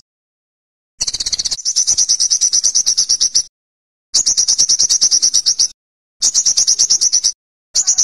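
Olive-backed sunbird singing high, rapid trills: fast runs of about ten notes a second on one pitch, in four bursts, the first the longest at over two seconds, with short gaps between.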